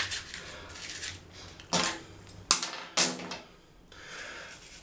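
Wet plastic cassette-recorder casing parts being scrubbed and handled in soapy water, with a soft rubbing sound and three short, sharp sounds about two to three seconds in.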